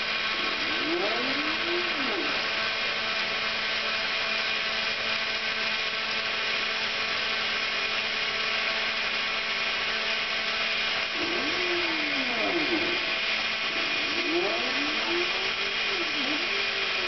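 Homemade CNC router milling fibreboard: the spindle runs with a steady whine as its small bit cuts. About a second in, and again through the last third, the stepper motors add whines that sweep up and down in pitch as the gantry speeds up and slows.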